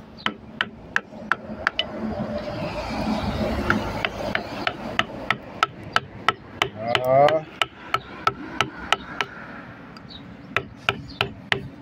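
Wood chisel being struck in quick, even taps, about two to three sharp knocks a second, as it cuts letters into a wooden board.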